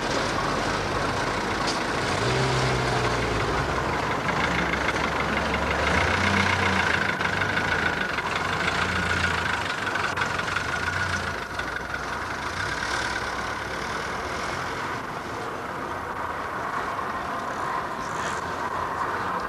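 A heavy vehicle's engine running amid steady street noise, its low hum most prominent in the first half and fading after about eleven seconds.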